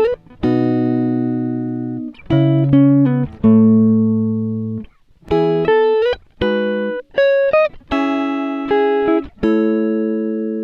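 Background music: a run of plucked chords, each struck sharply and ringing out as it fades, with short breaks between them.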